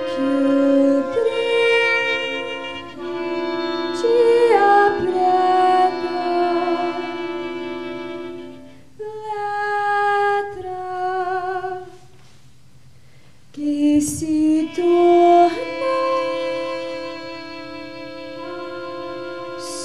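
Live chamber ensemble, trumpet and clarinet among the instruments, playing long held, overlapping chords with some wavering notes. The sound thins to a brief lull a little past the middle, then the instruments come back in with new held chords.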